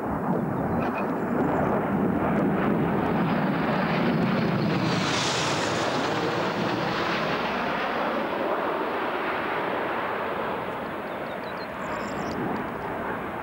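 BAE Hawk jets of an aerobatic display team flying past, a continuous jet roar that rises to its loudest and sharpest about five seconds in as a jet passes closest, then slowly fades.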